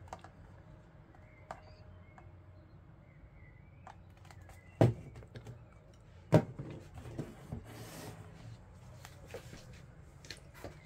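Handling noise from unboxing: scattered small clicks and taps, with two sharp knocks a second and a half apart near the middle, over a low steady hum.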